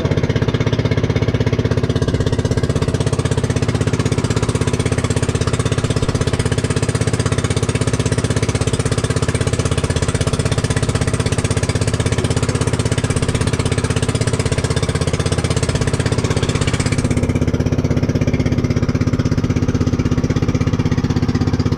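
Motor of an outrigger boat (bangka) running steadily under way, a rapid even pulse with a strong low hum. A higher hiss over it drops away suddenly about three-quarters of the way through.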